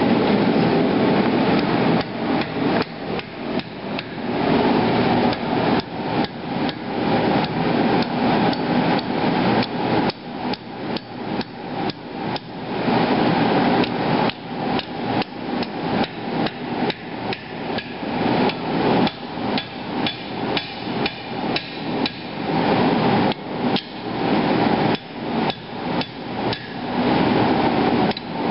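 Hand hammer striking red-hot steel on an anvil, the machete's tang being forged into a socket handle. The blows come in quick runs of about two to three a second, broken by short pauses, over a steady rushing noise.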